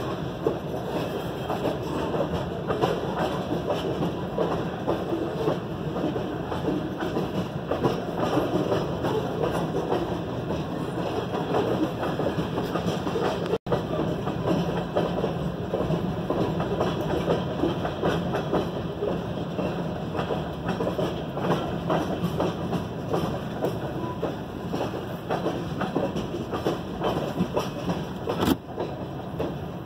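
Freight train of covered hopper cars rolling past a grade crossing: a steady rumble of steel wheels on rail with a continuous clatter of clicks, heard from inside a car. A single sharp knock comes near the end.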